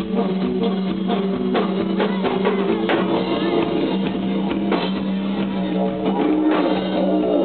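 Live rock band playing: a drum kit keeps a steady beat with bass-drum hits and electric guitar over a held low note.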